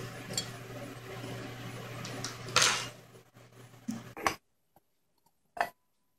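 Steel tweezers clicking and scraping on the small metal vent damper of a miniature kettle grill's lid, over a steady hiss with a low hum. A loud scrape comes a few seconds in and a couple of sharp knocks follow. The background cuts out abruptly a little past four seconds, then a single metal clink sounds near the end as the lid is taken up.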